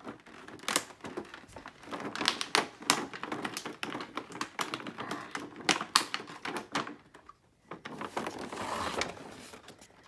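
Toy playset box being opened by hand: a rapid, irregular run of sharp clicks and knocks from cardboard and plastic packaging, with a short rustling scrape about eight seconds in.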